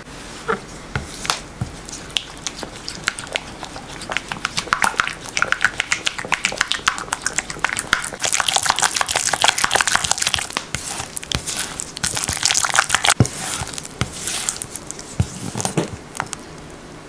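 Silicone spatula stirring melted chocolate and fresh cream in a glass bowl: quick ticking taps and wet scraping against the glass as the mixture comes together into a smooth, glossy ganache. The stirring is busiest in the middle and eases off near the end.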